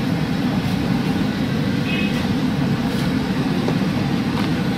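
Steady low rumble of background noise, with a few faint crackles from a plastic bag and fries being handled.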